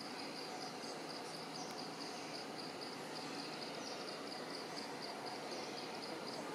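Insects chirring steadily in a high, evenly pulsed trill over a constant background hiss.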